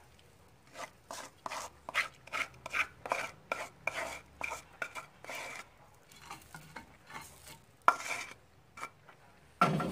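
Wooden spoon scraping and knocking against a pot as thick caramel is scraped out into a dish: a quick run of short scrapes, then scattered softer ones and a sharper knock about eight seconds in.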